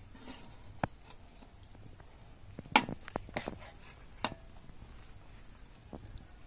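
Metal ladle knocking and scraping against an aluminium cooking pot of thick curry, a few sharp clinks with the loudest cluster about three seconds in.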